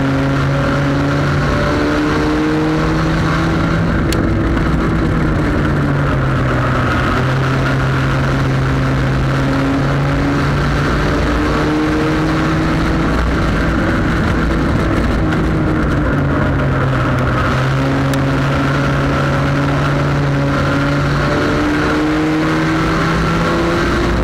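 Sport compact race car's four-cylinder engine at full racing speed, heard on board. The engine note climbs steadily along the straights and drops back as the driver lifts for the turns, several times over, with steady wind and road noise underneath.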